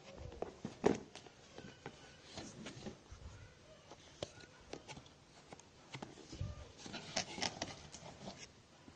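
Cardboard phone packaging being handled: scattered light taps, scrapes and rustles as the box parts and inner tray are moved, with a sharper knock about a second in and a cluster of clicks near the end.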